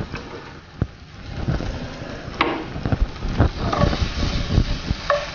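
A wooden spatula stirs and knocks against a non-stick frying pan while chopped onion, capsicum and tomato cook in hot oil with a hiss. There is a single click of a knife on a wooden chopping board about a second in.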